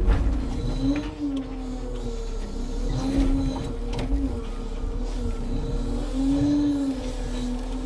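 Timber crane hydraulics whining under a steady low engine rumble, the whine rising and falling in pitch several times as the crane works, with a few knocks.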